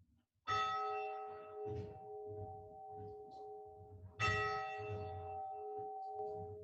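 Chapel bell struck twice, about four seconds apart, each strike ringing on with several steady tones and slowly fading.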